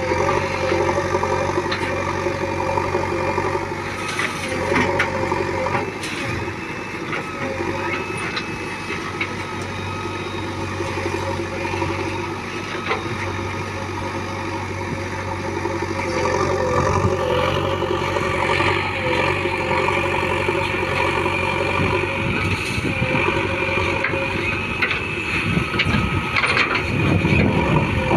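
Diesel engine of a JCB 3DX backhoe loader running steadily while it digs and loads mud, with a high whine that grows louder past the middle and occasional clanks.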